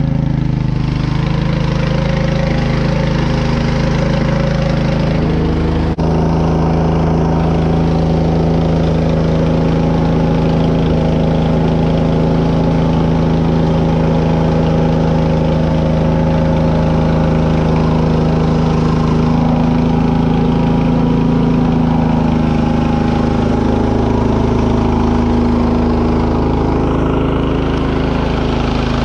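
Petrol engine of a Biltema CST 7113 tracked snow blower, just started and running steadily. Its note changes suddenly about six seconds in.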